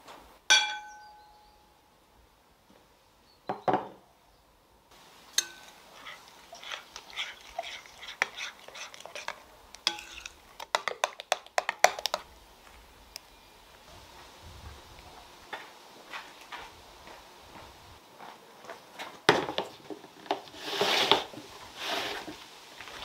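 Glass kitchenware clinking: a ringing clink about half a second in and a thud a few seconds later. Then batter is mixed in a glass mixing bowl, a long run of quick clicks and taps against the glass. Near the end come louder soft slaps and rustling as raw dough is handled and pressed into place.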